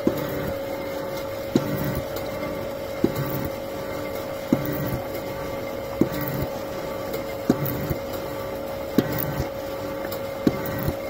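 Slotting head on a Pervmajska ALG-100c milling machine running, its tool cutting a keyway in the bore of a metal ring: a steady mechanical hum with a sharp knock about every second and a half.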